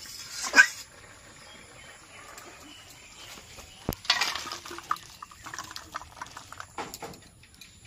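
A metal ladle scraping a steel wok, a sharp clank about four seconds in, then thick curry sliding out of the tilted wok into a steel bowl with a run of small scrapes and clicks as the last of it is worked out. A short loud sound comes about half a second in.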